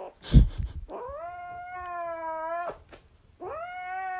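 A grey kitten gives two long, drawn-out yowls at a steady pitch while it clutches a plush toy that a hand reaches for: a possessive, guarding cry. A brief thump comes just before the first yowl.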